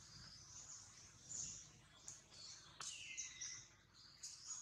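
Faint outdoor quiet with scattered short high-pitched chirps and calls, and one falling squeak about three seconds in.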